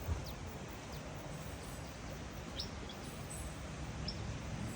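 Outdoor jungle ambience: a steady background hiss and low rumble, with a few short high bird chirps, one around the middle and one near the end, and a single soft knock at the very start.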